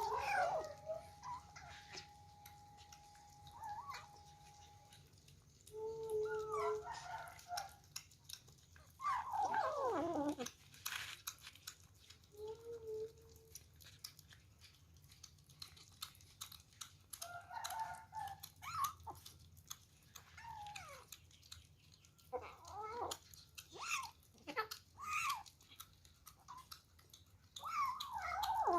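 Kittens meowing on and off, short calls falling in pitch, with small clicks and smacking sounds of them eating between the calls.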